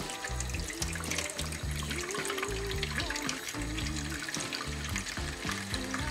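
Water being poured and splashing into a roasting pan to make a water bath for baking, over background music.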